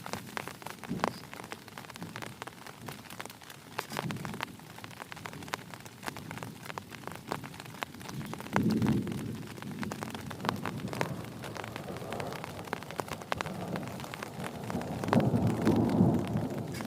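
Heavy rain falling, with many sharp drop hits close by, and low thunder rumbling twice: once about halfway through and again, louder, near the end.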